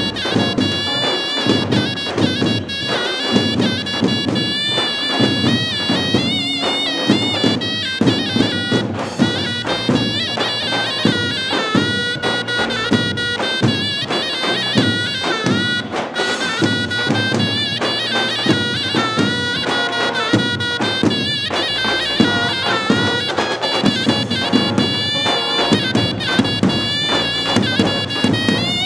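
Live wedding-entrance music: a large double-headed drum beaten with a mallet in a steady dance rhythm, under a loud reed wind instrument playing a continuous melody with bends and turns.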